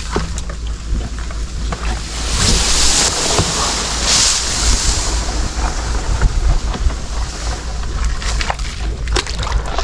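Wind buffeting the microphone with a steady low rumble, over water sloshing and splashing that swells twice in the first half, with a few small knocks.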